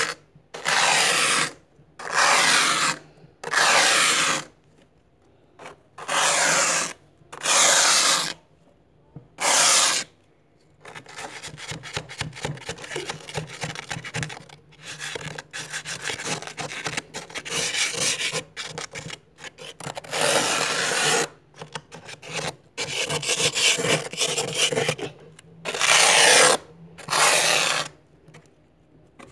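Plastic card scraping thick frost off a freezer's inner wall: a series of loud scrape strokes, each under a second, with short gaps between them, and a stretch of quicker, shorter scrapes in the middle.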